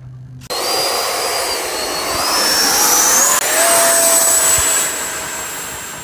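Electric ducted fan of a 1.3-metre RC model jet spooling up to full throttle for a hand launch: a sudden high whine over a rush of air starts about half a second in, rises in pitch for a few seconds, then holds high and grows fainter as the jet flies off.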